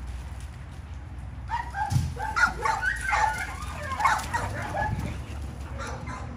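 American bully dogs playing rough, giving a burst of many short, high, pitched calls from about a second and a half in until about five seconds in, over a steady low background rumble.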